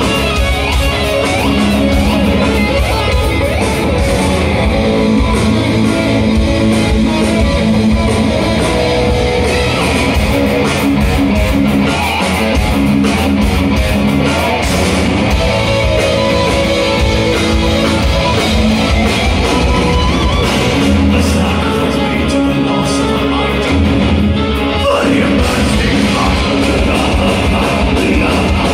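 Melodic death metal band playing live, loud and dense without a break: distorted electric guitars, bass, drums and keyboards, picked up by a microphone in the crowd.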